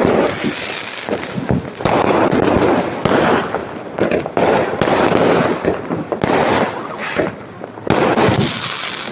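Firecrackers and fireworks going off in a dense, unbroken barrage of crackling bangs that swells and eases every second or so.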